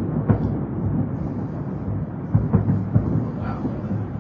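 Fireworks barrage heard from afar: a continuous low rumble of overlapping booms, with several sharper bangs standing out from it.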